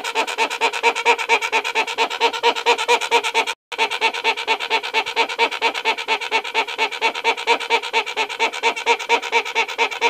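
Hornbill calling in a rapid, even series of nasal "ha" notes, about five a second, with a brief break just after three and a half seconds in.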